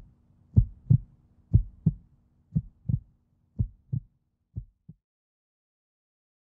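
Heartbeat sound effect in the soundtrack: low double thumps, lub-dub, about one pair a second over a faint low hum, growing fainter and stopping about five seconds in.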